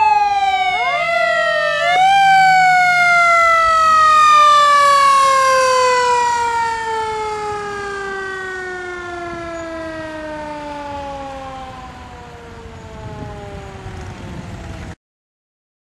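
Emergency-vehicle siren passing, giving a few quick rising whoops and then one long, slowly falling wind-down that fades away, cut off suddenly near the end.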